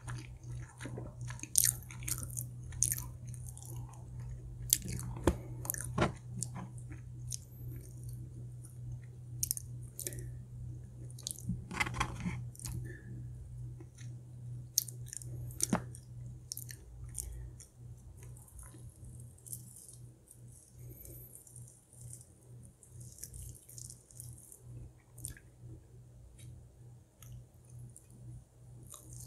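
A person biting and chewing crispy fried food close to the microphone: sharp crunching bites, thickest in the first half, then softer, sparser chewing. A steady low hum runs underneath.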